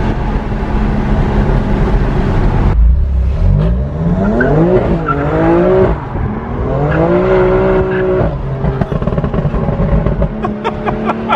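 BMW M2 Competition's S55 twin-turbo inline-six, with its secondary catalytic converters deleted, heard from inside the cabin under acceleration. The engine pitch climbs and falls back several times as it pulls through the gears, then settles to a steady cruise near the end.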